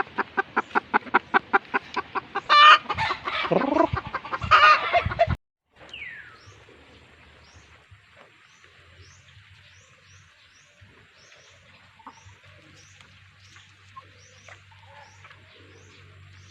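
Broody hen clucking in a rapid, even run of about five clucks a second, then breaking into loud squawks. It cuts off suddenly, followed by quiet with a regular series of faint, high, falling chirps.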